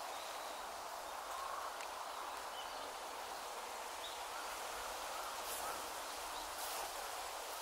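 Steady outdoor background noise with a few faint, short bird chirps, and two brief rustling clicks about five and a half and six and a half seconds in.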